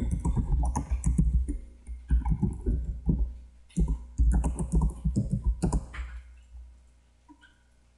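Typing on a computer keyboard: quick bursts of key clicks with short pauses, stopping about six seconds in.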